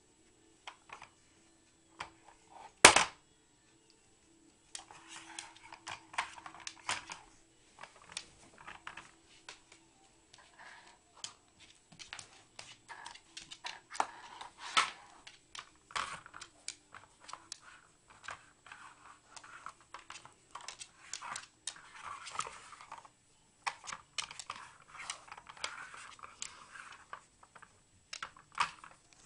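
An Entlebucher mountain dog working a plastic treat puzzle toy with nose and paws: a quick, irregular run of plastic clicks and clatter mixed with rustling and tearing of the paper stuffing. One sharp knock stands out about three seconds in.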